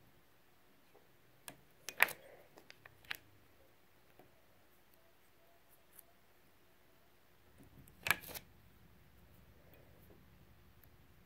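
Scattered sharp clicks and light taps from a metal weeding hook picking cut heat transfer vinyl off its carrier sheet on a wooden tabletop. A quick cluster of clicks comes about two seconds in, and a louder double click about eight seconds in.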